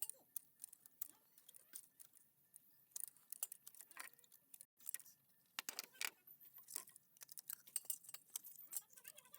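Faint, irregular small clicks and light metallic clinks from hands working on a car's ignition coil connector, cleaning its socket and pins.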